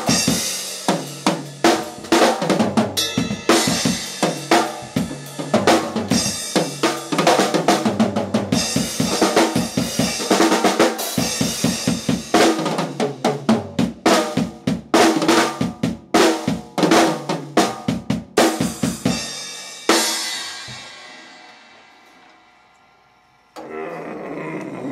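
Drum kit played in fast runs of snare, bass drum and cymbal strikes, ending about twenty seconds in with a final crash that rings out and fades over a few seconds. Near the end a different, steadier sound starts.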